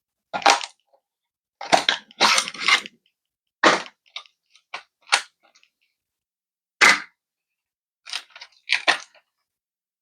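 Sharp clicks and snaps of PC hardware being handled and fitted together, about a dozen at irregular intervals, with a short cluster of rattling clicks about two seconds in.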